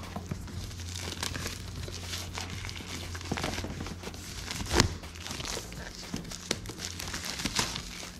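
Plastic shrink-wrap crinkling and crackling as it is pulled and peeled off a cardboard box by hand, with one louder thump about five seconds in.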